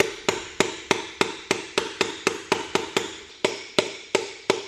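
Steady hammer blows, about three a second, each a sharp knock with a short metallic ring, driving a piston up out of the cylinder bore of a Kubota B5100 diesel engine from below.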